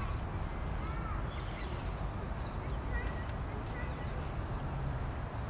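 Outdoor park ambience: a steady low rumble with a few faint, short bird chirps, one about a second in and a couple around three seconds in.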